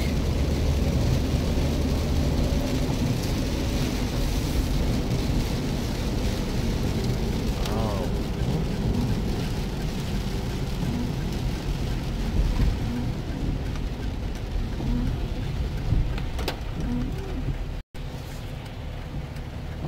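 Steady rain and wet-road noise heard from inside a moving Jeep's cabin, with the engine and tyres running beneath the patter. The sound cuts out for an instant near the end.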